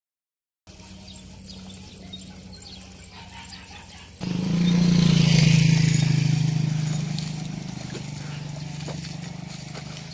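A small engine running with a steady drone, suddenly much louder about four seconds in and then slowly fading.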